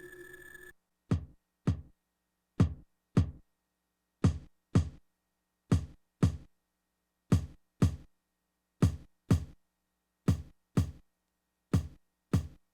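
E-mu SP-1200 sampler playing back a drum sample: short hits with a low thud that die away quickly. They come in pairs about half a second apart, eight pairs in all, one about every one and a half seconds.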